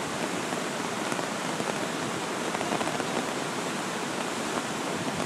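Steady, even rush of water from a flooded creek running high, mixed with the hiss of falling rain.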